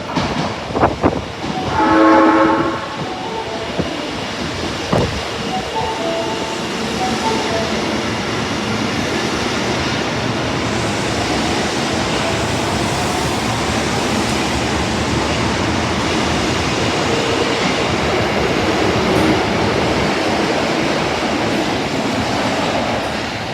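Osaka Metro Tanimachi Line 22 series subway train sounding a short horn blast about two seconds in, with a few sharp clicks around it, then running with a steady rumble that grows a little louder.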